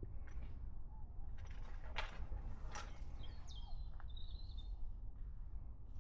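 A small bird chirps briefly in the middle, over a steady low rumble, with two sharp footfalls on debris about two and three seconds in.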